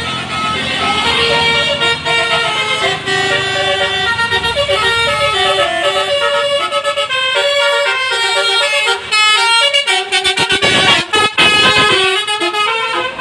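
Bus 'telolet' multi-trumpet Basuri horn playing a tune of short stepped notes, with quick on-off blasts about ten seconds in.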